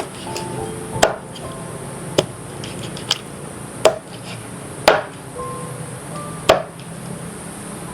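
Knife chopping food on a cutting board: about six sharp strokes at uneven intervals.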